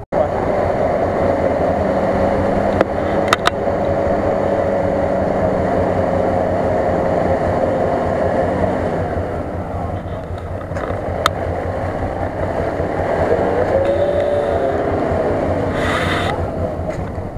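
Nissan Patrol SUV's engine running under load as the vehicle wades slowly through deep water and mud, its pitch steady at first, then rising and falling in the second half. A few sharp clicks and a short splashy burst near the end.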